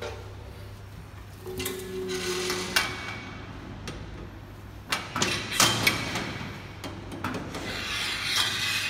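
Metal clinks and knocks of a stainless steel rod being fitted into a capsule-filling machine's steel plate: a handful of sharp strikes, bunched about halfway through, with some scraping near the end, over a steady low hum.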